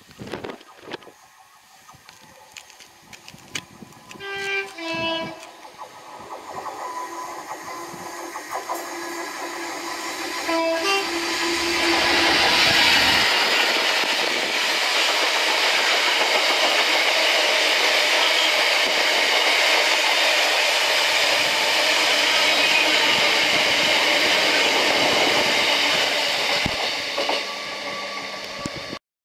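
GBRf Class 66 diesel locomotive sounds its two-tone horn, a short blast about four seconds in and another about ten seconds in with the lower note held about two seconds. Then the locomotive and its train of box wagons pass close by, loud and steady, until the sound cuts off just before the end.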